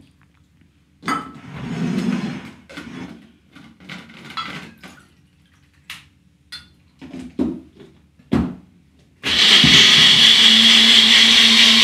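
Clinks, knocks and a pouring sound as cashew nuts and water go into a small bullet-style blender cup and it is fitted onto its base. About nine seconds in, the blender motor starts suddenly and runs at a steady whirr with a constant low hum, grinding the cashews and water into cashew milk.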